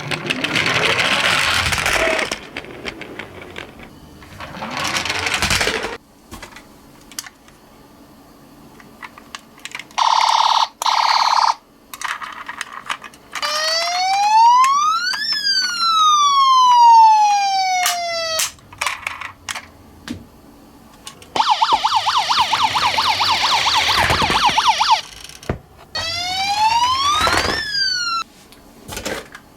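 Battery-powered electronic sirens of toy ambulance and police minicars: a short two-tone burst, then a slow wail rising and falling, and another rising wail near the end. Between them come bursts of clattering from small toy cars rolling down a slope, with scattered clicks.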